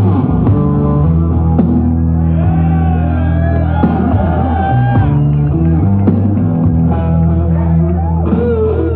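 Live rock music with amplified electric guitar playing a lead line of wavering, bending notes over held low notes.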